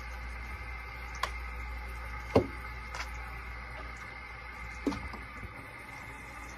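Small items being handled on a desk: four short clicks and knocks, the loudest a little over two seconds in, over a steady electrical hum.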